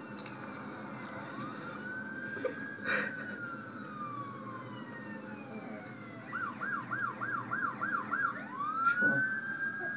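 Faint emergency vehicle siren wailing in slow rising and falling sweeps. It switches to a fast yelp for about two seconds and then goes back to a rising wail.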